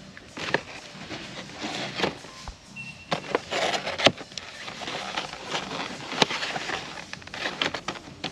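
Scattered sharp clicks, knocks and rustling over a faint steady low hum in a shop, with a brief high beep about three seconds in.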